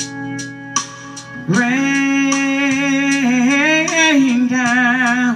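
A woman singing a long held note with vibrato into a handheld microphone, entering about a second and a half in over guitar accompaniment. The note bends up and back down near the end.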